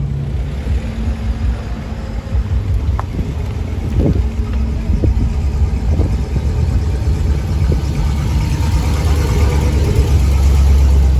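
Engine of a large classic American car running with a steady low rumble, growing louder near the end as it comes close.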